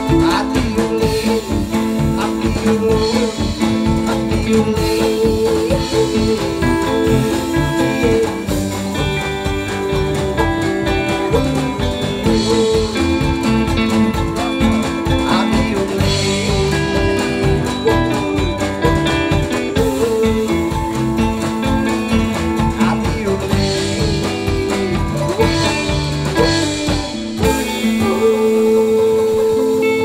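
Live band music led by guitar over a steady beat. Near the end the beat stops and a chord is held.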